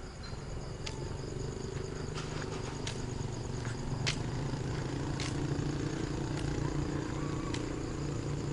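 A steady low engine hum that swells slightly, with insects trilling steadily at a high pitch and footsteps on pavement about once a second.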